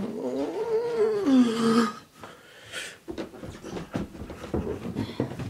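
A long drawn-out vocal call lasting about two seconds, rising and then falling in pitch, followed by footsteps climbing stairs as a string of irregular thuds.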